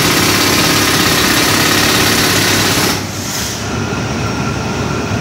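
Pneumatic jackhammer hammering into a reinforced concrete floor slab, stopping about three seconds in. A steadier engine-like running sound, from the air compressor, carries on after it.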